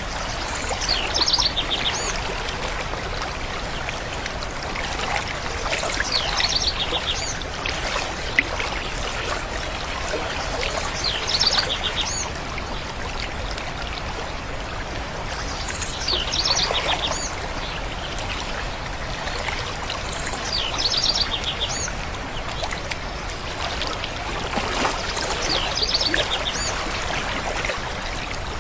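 Steady running water, like a trickling stream, with a songbird singing a short phrase of quick repeated notes about every five seconds.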